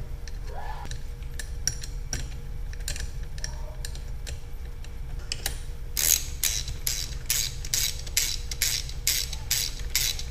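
Small metal clicks of screws and washers being handled and started into the pump housing, then from about six seconds in a hand ratchet clicking steadily, about three to four clicks a second, as the new water pump housing screws are tightened.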